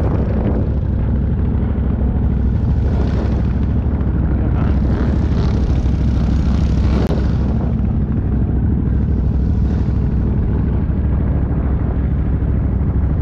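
Can-Am XMR mud ATV's engine running with a deep, steady rumble that swells a few times as the throttle is lightly blipped.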